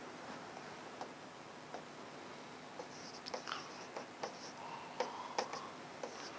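Faint writing with a pen: scattered light taps and short scratchy strokes, which grow busier from about three seconds in.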